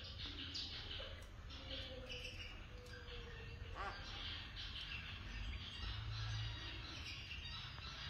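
Small caged songbirds chirping and twittering over and over in short high bursts, over a low rumble.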